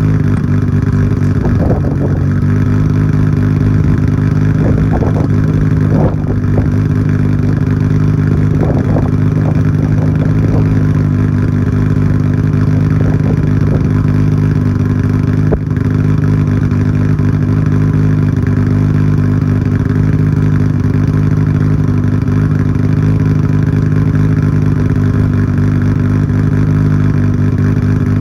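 Nissan Skyline GT-R R34's RB26 twin-turbo straight-six idling steadily through a Tomei Expreme Ti titanium exhaust with its silencer insert fitted, warming up after a cold start.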